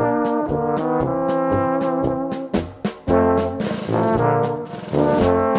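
Background music of brass instruments playing together in harmony, with notes changing several times a second.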